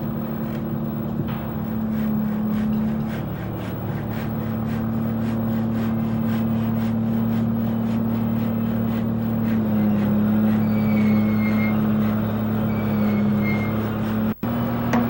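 A motor running steadily at a nearly constant pitch, the pitch sagging slightly a couple of seconds in and again around ten seconds in.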